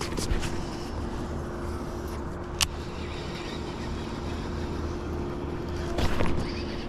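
A boat motor running steadily with an even hum. There is a sharp click about two and a half seconds in and a brief cluster of knocks near the end.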